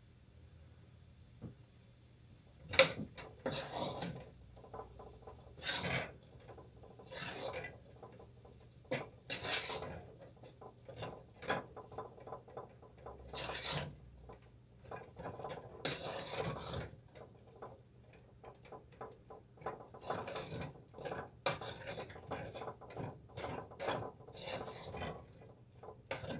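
Kitchen food-prep handling noises: irregular rubbing and scraping strokes with clinks and knocks of dishes and utensils on the counter, the sharpest knock about three seconds in.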